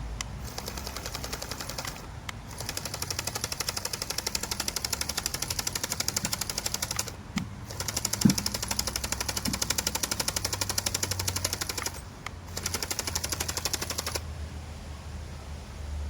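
Huina 1570 radio-controlled toy excavator's electric gear motors running in spells, a fast, even rattling chatter with short pauses between movements.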